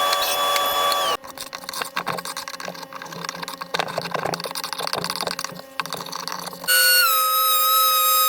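Woodworking shop sounds in quick cuts: a power tool's steady whine, then several seconds of light irregular clicks and taps, then another tool whining steadily, its pitch dipping briefly near the end.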